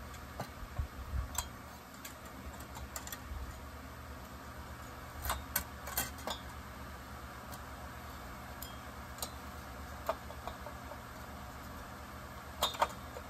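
Scattered light metallic clicks and taps of a chainsaw cylinder being fitted onto the piston and crankcase of a Husqvarna 562 XP Mark II, a few at a time with a cluster about five to six seconds in and another near the end, over a steady low hum.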